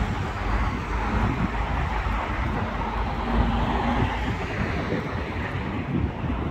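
Road traffic going by, a steady rush of tyre and engine noise that fades toward the end, with a low rumble of wind on the microphone.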